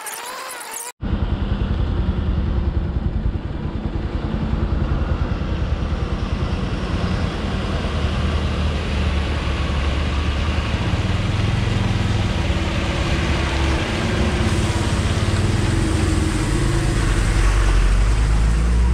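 Motor vehicle engine running steadily under way, a dense low rumble heard from on board, starting abruptly about a second in.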